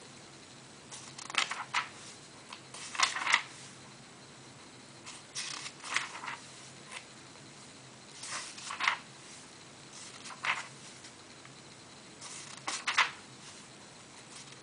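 Pages of a paperback book being leafed through by hand: about six short bursts of paper rustling, a couple of seconds apart.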